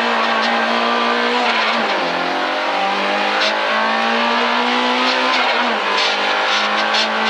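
Rally car engine pulling hard at high revs, heard from inside the cabin. Twice, about two seconds in and again near six seconds, the engine note drops and climbs again as it changes up a gear.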